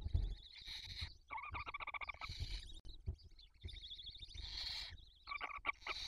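Barn owl chicks calling while being fed: a run of short, rasping, buzzy chirps and hissing screeches, one after another, with a low thump right at the start.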